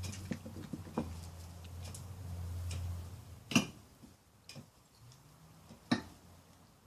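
Sharp knocks a second or two apart from hand tools striking stone as a foundation trench is dug out by hand, the loudest about halfway through. A low steady hum runs underneath and stops just before the middle.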